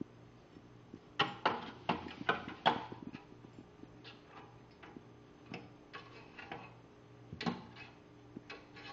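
Small decorative wire bird cage clicking and rattling as a kitten bats at its bars: a quick run of sharp clicks about a second in, then scattered single clicks.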